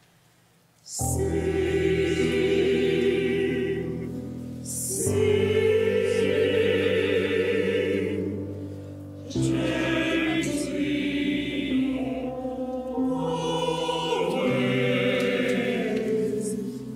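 Mixed choir singing sustained chords with piano accompaniment. It comes in about a second in after a brief hush, and new phrases start about five and nine seconds in.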